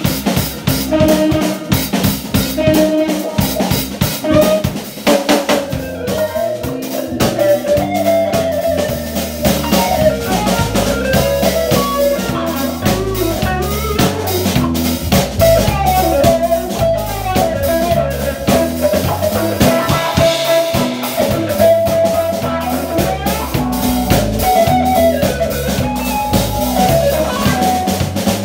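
Live band playing: a drum kit keeps a steady beat under an electric bass line and electric guitar, with a lead melody running over the top.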